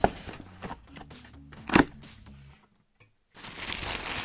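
Cardboard shoebox being handled and opened: a knock at the start and a louder one nearly two seconds in. After a short gap, tissue paper rustles near the end.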